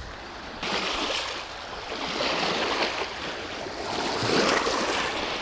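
River water splashing and washing at the bank's edge. It starts suddenly about half a second in and swells louder twice.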